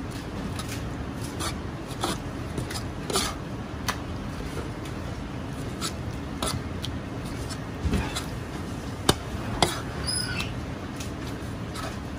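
Chinese cleaver cutting raw chicken thighs on a thick plastic cutting board: irregular sharp knocks of the blade meeting the board, a couple of them louder about nine and a half seconds in, over a steady low background hum.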